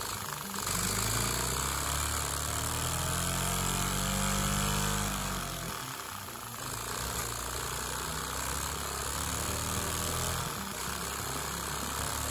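LEGO vacuum engine running in a clutch test rig, its rapid piston rhythm speeding up to a rising tone over the first few seconds and then falling off about five seconds in, after which it runs on more roughly. A steady hiss runs underneath.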